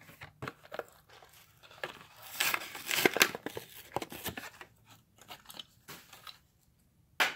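A Hot Wheels blister pack being cracked open by hand: the plastic bubble crinkles and crackles as it is pried and torn away from the cardboard card, loudest about two to three seconds in. A single sharp click near the end.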